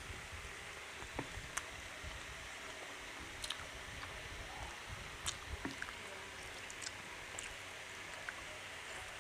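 Eating sounds of rice and curry: soft chewing with scattered small clicks and squishes over a steady background hiss.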